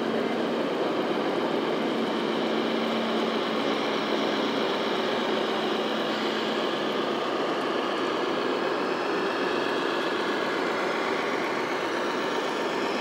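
Steady diesel engine sound from the sound module of a radio-controlled Scania tipper truck model as it drives slowly, with a steady hum that drops out about halfway through.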